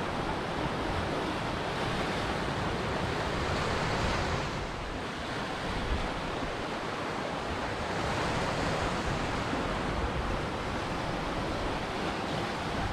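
Ocean waves breaking and washing on a shore, a steady rush of surf that eases slightly about four to five seconds in and then builds again.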